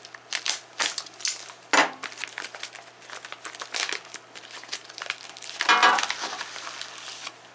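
Plastic packaging of a screwdriver set crinkling and crackling as it is opened, a dense run of sharp clicks with louder crackles about two and six seconds in.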